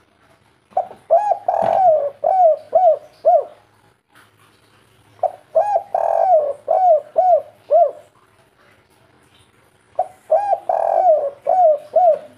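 Spotted dove (tekukur) cooing its 'kuk 3' song, three phrases about four and a half seconds apart. Each phrase is a quick opening coo, a longer drawn-out coo, then three short falling 'kuk' notes to finish.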